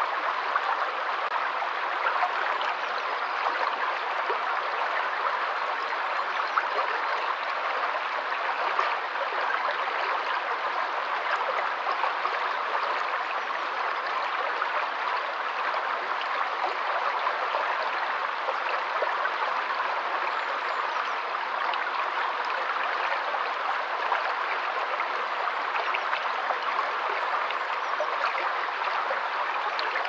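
Shallow rocky stream running over stones: a steady, even rush of water with fine splashing.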